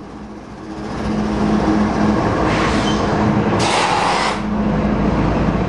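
Diesel-electric freight locomotives passing close by: a steady engine hum over the rumble of the train rolling on the rails, with two brief bursts of hiss midway. The engine hum fades near the end as the loaded freight cars follow.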